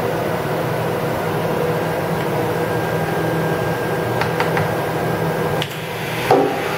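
Fadal 3016 vertical machining centre running under power, a steady mechanical hum with a faint high whine. A few light clicks come about two-thirds of the way through, and a short knock near the end.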